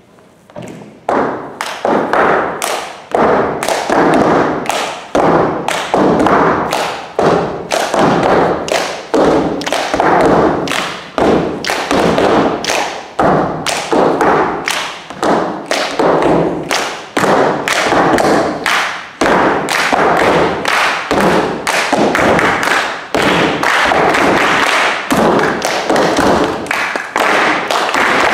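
Group body percussion: slaps on thighs and chest, claps and foot stomps in a steady, brisk rhythm, starting about a second in.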